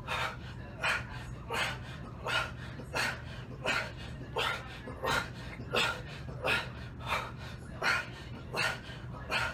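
A man breathing hard and sharply through a set of heavy dumbbell bench presses, in a quick even rhythm of about three breaths every two seconds, in time with the reps. The panting of heavy exertion under a pair of 100-pound dumbbells.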